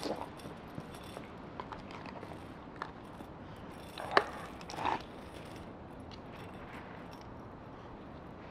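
Metal dog chain and collar hardware clinking faintly as the husky moves, with a sharper clink about four seconds in and another short one just before five seconds.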